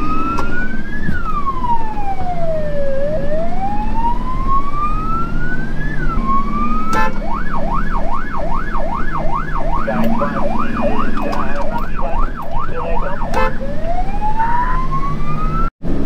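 Fire truck's electronic siren heard from inside the cab over the running engine. It gives a slow rising and falling wail, switches about seven seconds in to a fast yelp of two to three sweeps a second, and goes back to the wail near the end.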